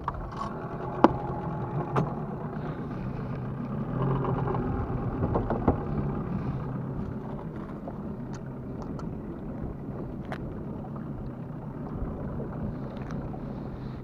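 Small boat's outboard motor running steadily while the boat is under way on choppy water, with a few sharp knocks, the loudest about a second in.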